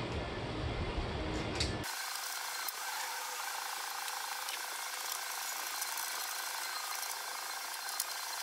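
Ratchet wrench working on the headlight mounting bolts: a few scattered light clicks over a steady hiss. A low rumble cuts off abruptly about two seconds in.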